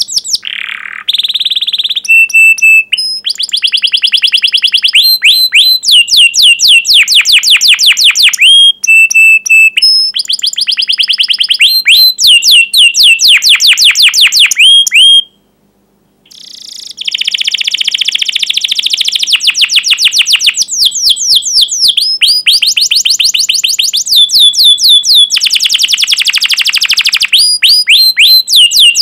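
Domestic canary singing vigorously: long, loud runs of rapid downward-sweeping 'cuit cuit' chirps and fast rolling trills, with a few short held whistles, broken by a silence of about a second near the middle.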